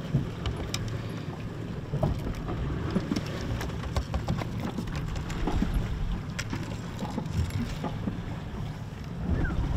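Wind buffeting the microphone over the low rumble of a boat at sea, with scattered light clicks and knocks.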